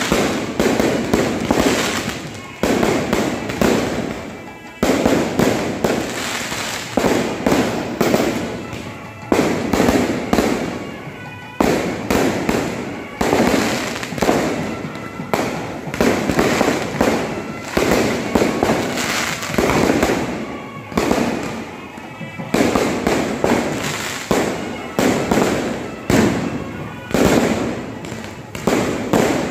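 A non-stop kambakattu fireworks display: loud aerial shells and crackers going off in rapid succession, several bangs a second with no pause, each blast trailing off into the next.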